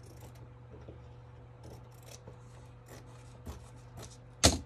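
Scissors cutting through fabric in short, scattered snips, with one sharp knock near the end.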